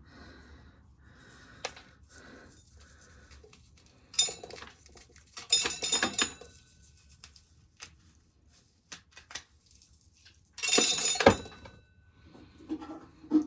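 Dried corn being shelled: hard kernels rattling and clattering into a bucket. It comes in three short bursts, about 4 s in, around 6 s and around 11 s, with scattered clicks between.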